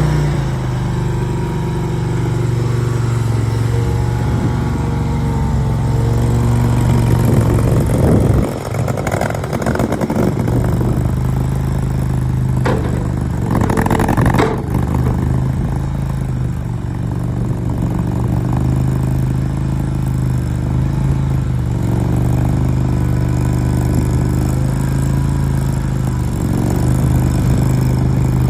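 23 hp V-twin engine of a GT380W mini skid steer loader running steadily and smoothly, with a brief dip about eight seconds in and a short burst of clatter around thirteen to fourteen seconds.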